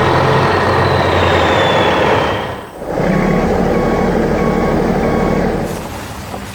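A heavy truck's engine running, dropping off briefly for a moment, then starting again with a reversing alarm beeping about twice a second.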